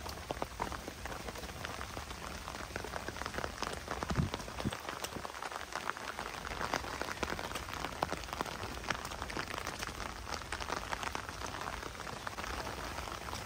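Steady rain falling, with many sharp drop ticks close by. A single low thump about four seconds in.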